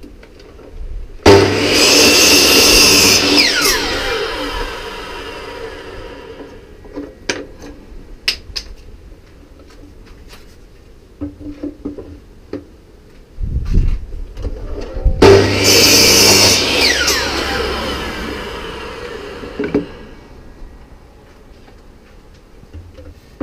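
Electric mitre saw cutting an oak plank twice, about 14 seconds apart: each time the motor starts suddenly, runs through the cut, then its whine falls away as the blade spins down. Light knocks and clicks of wood being handled and set against the stop between the cuts.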